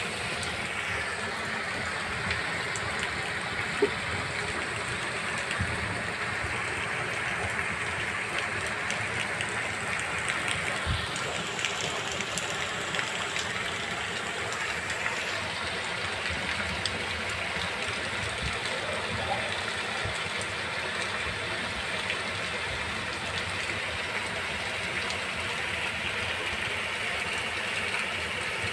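Heavy rain falling steadily on paving stones and puddles, an even rushing hiss, with one sharp tap about four seconds in.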